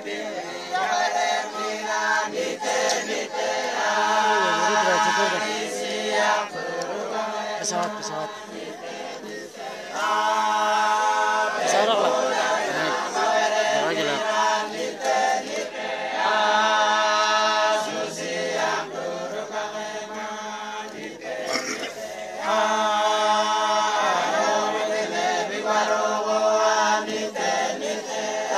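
A group of men singing a hymn of praise a cappella in a regional language, in held, chant-like harmony, with short breaks between phrases.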